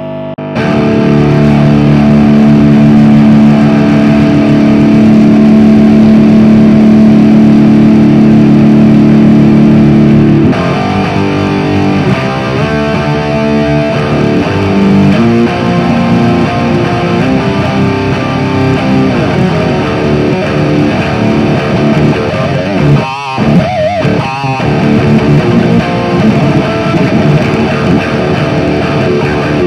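Distorted electric guitar played through a Soldano SLO 30W Mini tube amp head on its crunch sound, with an overdrive pedal and a little delay in front of it. One long chord rings for about ten seconds, then shorter chords and riffs follow, with a brief break a little past the twenty-second mark.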